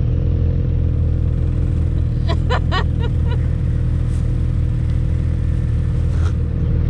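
Vehicle engine running steadily, a low, even drone, with a few short higher sounds about two to three seconds in.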